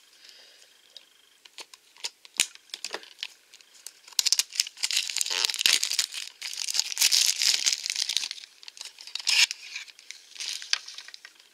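Clear plastic shrink-wrap being cut and peeled off a small toy box. A few light clicks and ticks come first, then about five seconds of loud crinkling and tearing of the plastic film, then more light clicks as the box is handled.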